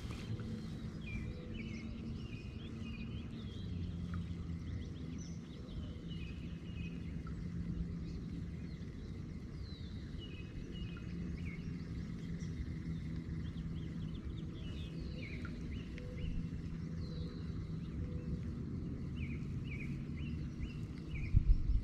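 Small songbirds chirping in short, repeated calls over a low, steady background hum.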